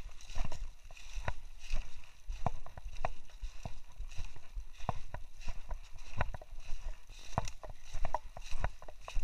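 Footsteps on a rocky dirt trail, about two steps a second, over a steady rustle.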